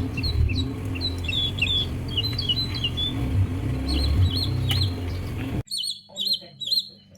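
Birds chirping over and over in short, quick calls above a steady low rumble. The rumble cuts off suddenly about five and a half seconds in, and the chirping carries on.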